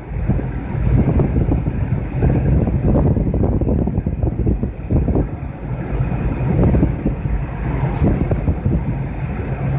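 Steady road noise inside a car driving at highway speed on pavement: low tyre rumble and engine hum, with some wind buffeting.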